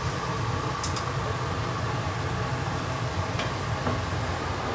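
Kitchen range hood fan running steadily, a low whirring rumble with a faint whine above it. A few light clicks of a plastic bottle cap being screwed on and handled near the start.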